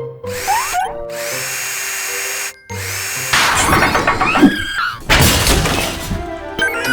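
Cartoon background music with comic repair sound effects: a rising slide near the start, a steady power-tool-like whir, and a loud burst of noisy clatter about five seconds in.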